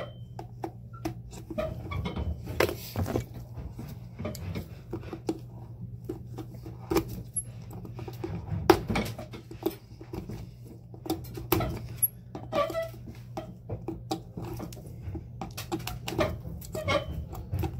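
Pincers gripping and pulling at the heel seat and sole of a Red Wing Iron Ranger boot, working them loose: a run of irregular clicks, snaps and creaks over a steady low hum.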